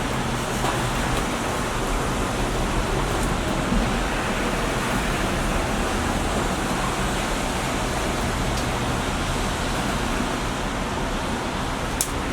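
Steady broad hiss of background noise, with a single sharp click near the end.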